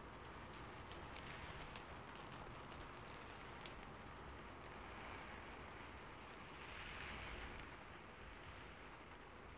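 Faint, steady rain on a rooftop, with scattered light drop ticks and a brief swell about two-thirds of the way through.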